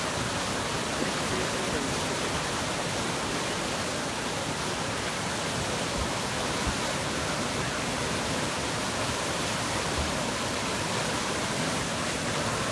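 Flash-flood debris flow on Hermosa Creek, fed by runoff off a wildfire burn scar: a steady rush of fast, muddy floodwater, with a few faint low thumps about six and ten seconds in.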